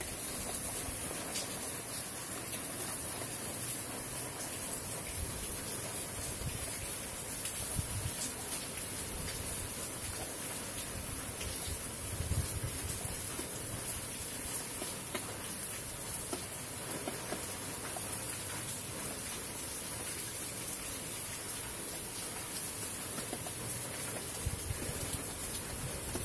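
Steady rain falling on garden foliage and puddled ground, a continuous even hiss. A few brief low rumbles come through now and then.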